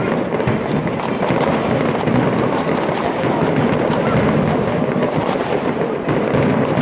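Aerial fireworks shells bursting in a rapid, unbroken barrage: many crackles and bangs overlapping with no gaps.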